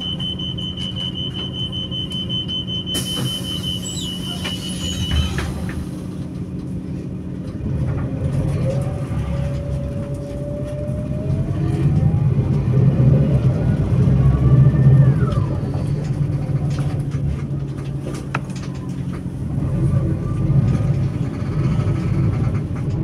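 Mercedes-Benz Conecto O345 G articulated city bus idling with a steady low diesel hum. From about eight seconds in, a whine rises steadily in pitch as the engine revs, peaks and drops sharply about fifteen seconds in, then settles back to the steady hum. A steady high whistle runs through the first five seconds.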